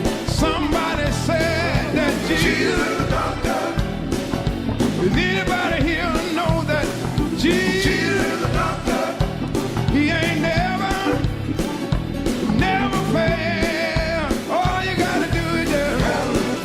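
Rock song with a sung vocal over guitar and a steady drum beat.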